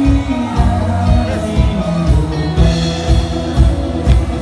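Live rock band playing loudly, with a steady kick-drum beat about twice a second and a singer's voice over the guitars.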